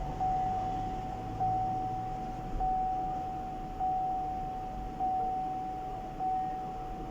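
Single-pitched electronic warning chime dinging over and over, about once every 1.2 seconds, each ding fading slightly before the next, six in all.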